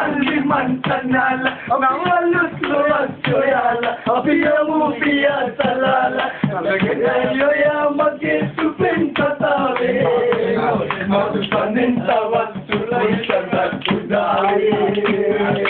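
Music with a male voice singing, held notes rising and falling.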